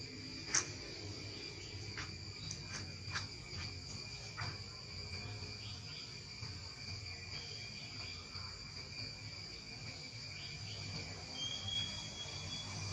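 Insects trilling steadily in a high, even drone at two pitches, with a few soft clicks in the first few seconds and a short high whistle near the end.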